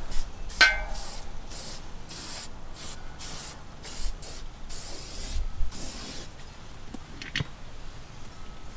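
Tire lube sprayed onto the tire bead and rim in about ten short hissing bursts, with a metallic clink near the start and a single knock near the end.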